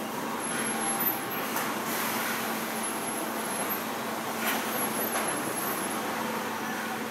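Steady factory-floor machinery noise: a constant hum with a low steady tone under it, and a few faint clicks or knocks scattered through it.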